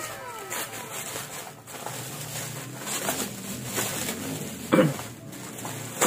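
Plastic bubble wrap crinkling and rustling as it is pulled apart by hand. A short, loud sound slides downward in pitch near the end.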